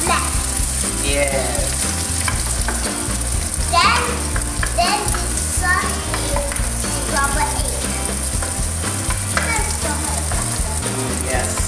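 Egg frying in hot oil in a nonstick pan, sizzling steadily while a wooden spatula stirs and scrapes through it.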